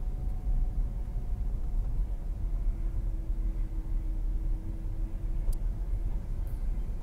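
Car's road and engine noise heard from inside the cabin while driving: a steady low rumble, with a faint hum coming in for a few seconds in the middle and a light click near the end.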